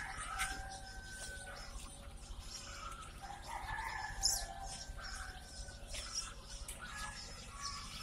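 Many baby chicks peeping together in a dense, overlapping chorus of short high peeps. Occasional soft knocks and rustles come through, the strongest about halfway.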